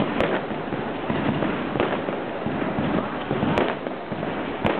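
Aerial fireworks bursting overhead: a continuous crackle of firework stars, broken by four sharp bangs about a second or two apart.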